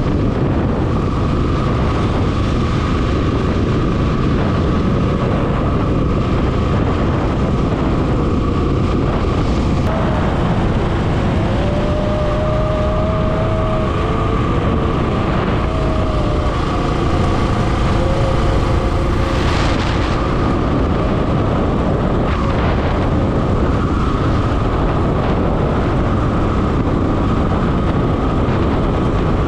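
Royal Enfield motorcycle riding at highway speed, its engine under a steady rush of wind on the microphone.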